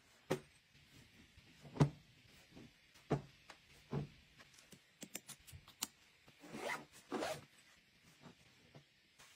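Clothes being shaken out and laid down flat on a carpet: four soft thumps of fabric landing in the first few seconds, then light taps and two longer bursts of fabric rustling as the garments are smoothed and folded.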